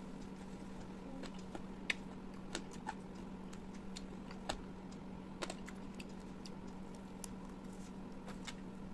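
Close-miked eating sounds: irregular sharp clicks of chewing and mouth smacks, a dozen or so spread at uneven intervals, over a steady low hum.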